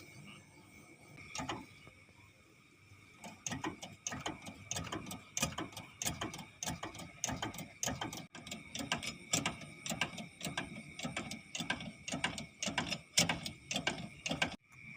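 A mechanism clicking like a ratchet, about two or three clicks a second, starting about three seconds in and cutting off near the end, over a steady high-pitched hum.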